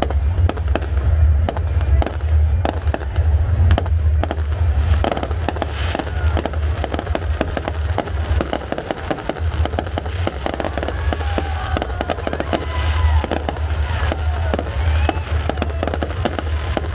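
Fireworks display: aerial shells bursting in a rapid, overlapping run of bangs and crackles, over a constant deep rumble.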